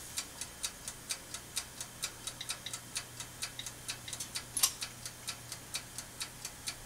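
Toaster oven's mechanical timer ticking steadily, about four to five ticks a second, over a faint low hum, with one louder click about four and a half seconds in.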